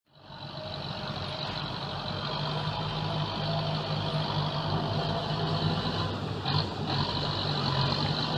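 Heavy earthmoving vehicle's engine running steadily, from a tractor or dump truck working the ground.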